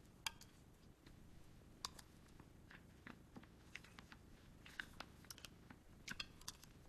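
Near silence with faint, scattered clicks and chewing sounds of someone eating.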